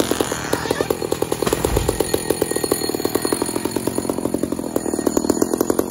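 Two-stroke chainsaw idling with a fast, even putter.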